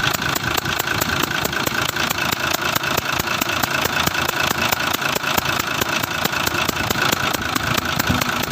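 Engine idling with a rapid, even ticking, about six ticks a second: the noise of compression pressure leaking past an injector nozzle.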